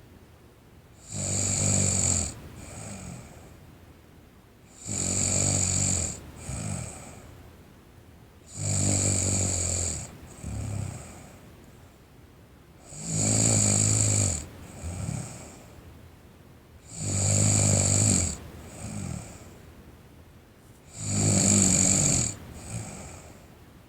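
A sleeping person snoring in a steady rhythm: a loud snore about every four seconds, six in all, each followed by a shorter, softer one.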